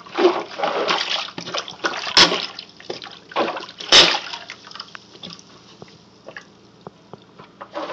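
Rubber cup plunger pumping in a clogged kitchen sink bowl full of standing water: repeated sloshing strokes over the first four seconds, the sharpest at about two and four seconds in, then quieter with scattered drips and small splashes.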